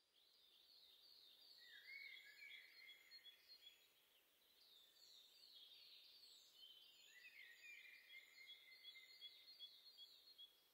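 Faint birdsong: a rapid series of short, falling chirps, with a lower, longer call twice, over a soft background hiss.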